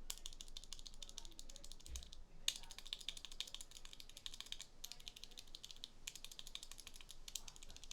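Fast typing on a keyboard fitted with linear mechanical switches: a dense run of keystroke clacks with short breaks about two and six seconds in.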